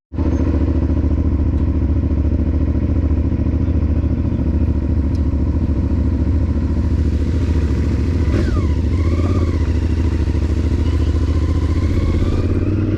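Motorcycle engine running at a steady, even speed while riding. It starts suddenly and holds constant throughout.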